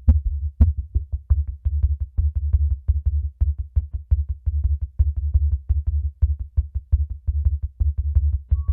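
Downtempo electronic instrumental music from a Roland MC-303 groovebox: a deep bass pulsing in a quick, steady beat under short drum-machine hits. A sustained high synth tone comes in near the end.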